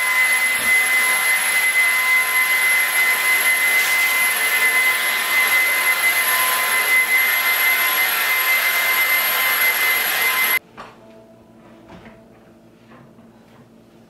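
Small motor running with a loud, steady rush of air and a high, steady whine; it cuts off suddenly about ten and a half seconds in.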